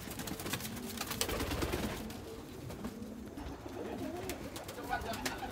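Domestic pigeons cooing in a loft, low wavering coos going on throughout, with scattered sharp clicks and taps.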